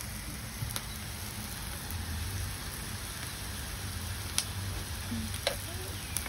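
Pork belly and other meat sizzling in a steady hiss on a hot round Korean barbecue grill pan, with a few sharp clicks of metal tongs.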